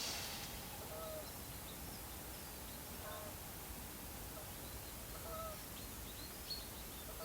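Birds calling over a steady faint hiss: a short low call repeats about every two seconds, with fainter high chirps in between.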